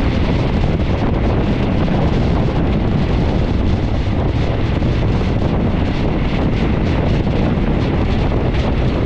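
Steady, loud wind buffeting the microphone at the open window of a moving train, over the rumble of the train running on the rails.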